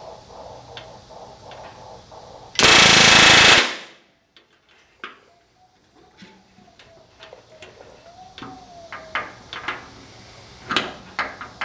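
Pneumatic rivet gun hammering in one burst of about a second, driving a solid aluminium rivet into the RV-10 wing's rear spar. It is followed by small, sharp metallic clicks and taps as the tools are shifted to the next rivet.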